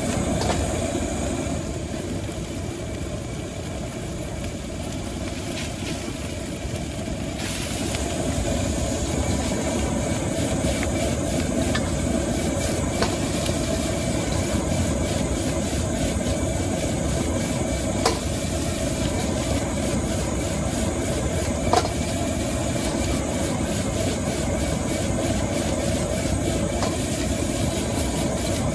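Wok stir-frying over a high-output gas burner: the burner's steady roar, with sizzling that grows louder about seven seconds in and a few sharp clinks of the metal spatula against the wok.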